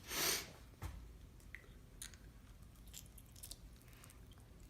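A person chewing a mouthful of peel-apart cherry candy strands, with faint wet clicks scattered throughout. A short rush of noise in the first half-second is the loudest sound.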